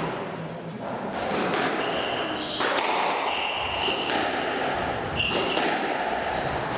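Squash being played: sharp knocks of the ball off racket, walls and floor, several times over, with short high squeaks of court shoes on the wooden floor.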